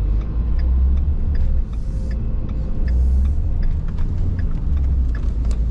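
Vehicle engine running with a low, uneven rumble while travelling, with faint light ticks over it.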